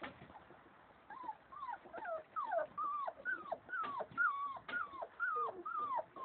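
Young nursing bullmastiff-cross puppies whining: after a quiet first second, a run of about ten short, high, downward-gliding whines, roughly two a second.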